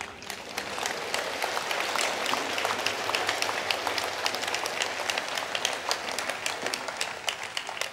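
A large congregation applauding: many hands clapping in a dense, steady patter.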